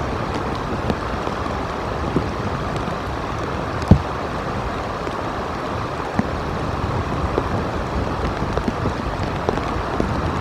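Steady rain and wind on an outdoor nest-cam microphone, with scattered raindrop ticks and one sharper, louder knock about four seconds in.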